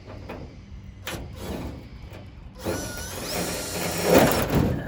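Cordless impact driver running for about two seconds from just past halfway, driving a screw through aluminum sheet into the steel truck bed, with a rising whine as it works. The screw does not go all the way through. Light handling knocks come before it.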